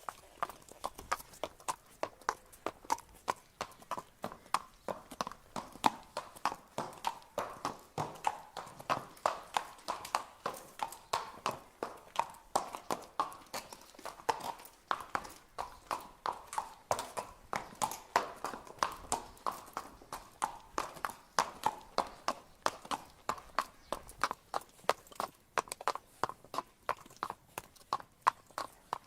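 Horse walking, its hooves clip-clopping in a steady rhythm of about three sharp hoofbeats a second.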